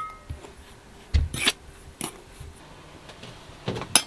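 Metal spoon stirring dry flour in a stainless steel mixing bowl. It starts with a sharp clink and a brief ring off the bowl, then there are scattered scrapes and soft knocks, with a few more clicks near the end.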